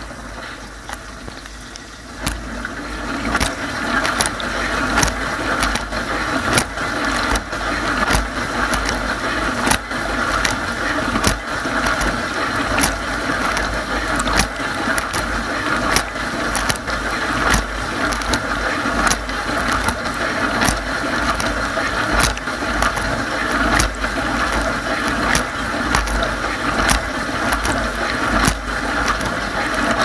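Water spraying and splashing inside a running Bosch dishwasher during its wash cycle, with a steady low hum underneath. The spray gets louder about two seconds in, and frequent sharp ticks run through it.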